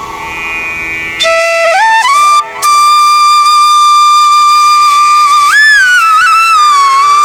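Background music: a single flute-like melody with sliding notes and one long held note in the middle.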